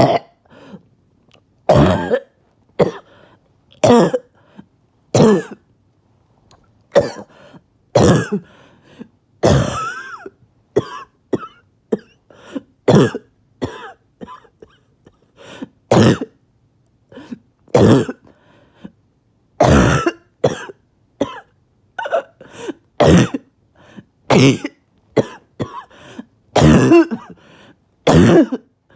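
A person's harsh barking cough, coming as short single coughs about once a second, over and over.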